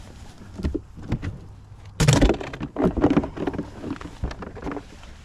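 Knocks and thumps of handling in a small fishing boat: one loud thud about two seconds in, followed by a run of lighter knocks.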